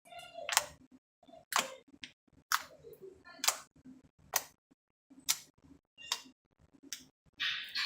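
Sticky homemade slime being squeezed and pulled, giving sharp popping clicks roughly once a second, several trailing off in a short falling squelch, with a longer, noisier squelch near the end.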